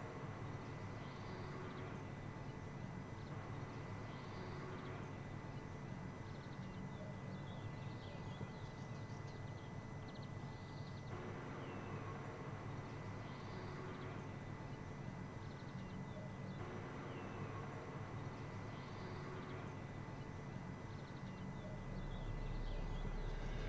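Faint outdoor ambience: a steady low hum with occasional distant bird chirps, and a low rumble swelling near the end.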